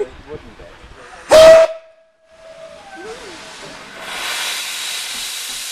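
A steam locomotive's whistle gives one short, very loud blast, its note lingering faintly for a second or so afterwards. Then a steady hiss builds up, grows louder and stops abruptly.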